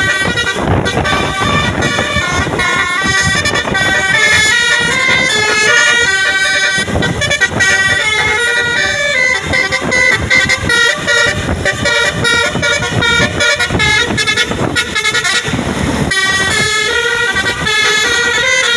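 Tour bus 'telolet' multi-tone air horn playing a fast stepping melody of held notes, over the rumble of the bus engine and traffic.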